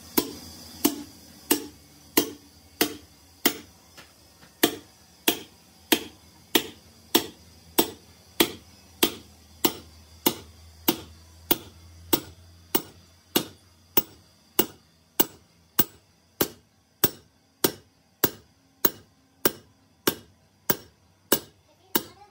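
Steel bar rammed down by hand onto a sleeve driver, knocking a cylinder sleeve into the bore of a Fiat tractor's three-cylinder engine block: sharp metal-on-metal knocks at an even pace of about one and a half a second.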